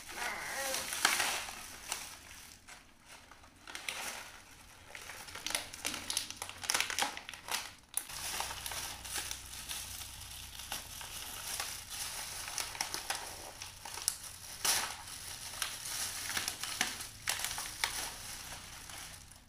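Thin plastic carrier bag and the snack packets inside it crinkling and rustling on and off as a small child's hands rummage through it, with one louder crackle about three quarters of the way through.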